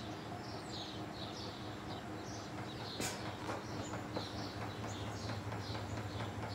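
Rusted ceiling fan running with a steady low motor hum and faint irregular ticking, one sharper click about three seconds in, as it wobbles on its ball-socket mount. Small birds chirp repeatedly over it.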